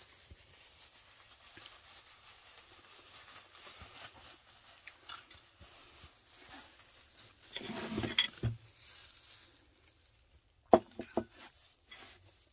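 Dishes and cutlery being handled at a table: faint crackling and rustling at first, a louder clatter about eight seconds in, and a few sharp clinks of a metal fork against plates near the end, the loudest sounds of all.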